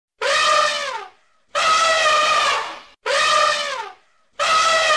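Elephant trumpeting four times, each call about a second long and dropping in pitch as it ends.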